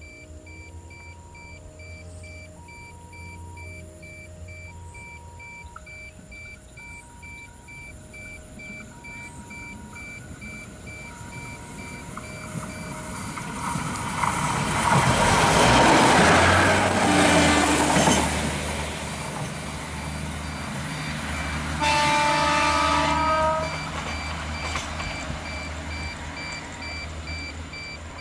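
An alternating two-tone warning beep sounds about once a second over a low engine drone, then a yellow KAI diesel railcar runs past at speed, loudest about halfway through as it passes close. A train horn sounds for about two seconds a little later.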